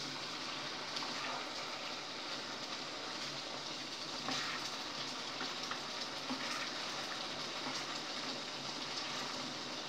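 Chicken halang-halang sauce simmering hard in a pan: a steady sizzling hiss with scattered crackles and a few sharper pops, as the sauce reduces.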